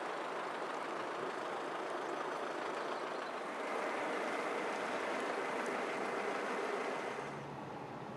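Volvo heavy truck pulling a loaded low-loader trailer drives past: a steady rumble of engine and tyre noise that swells a little in the middle and drops near the end.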